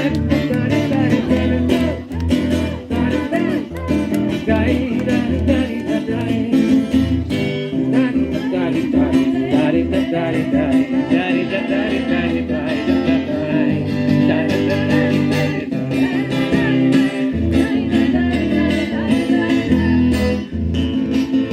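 Acoustic guitar strumming a song, with voices singing along.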